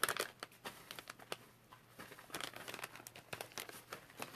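Crinkling of a foil snack-chip bag being handled, in scattered sharp crackles with a short lull about a second and a half in.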